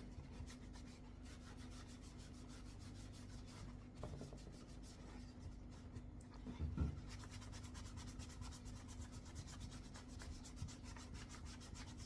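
A paper towel damp with Windex rubbed back and forth over a computer mouse with a rubbery finish, a quick, even scrubbing. There is one soft bump about seven seconds in.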